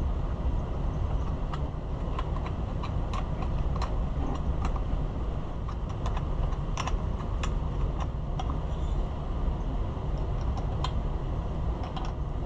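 Scattered light clicks and taps of hand tools and small metal parts being handled while bolting a chainsaw back together, irregularly spaced, over a steady low background rumble.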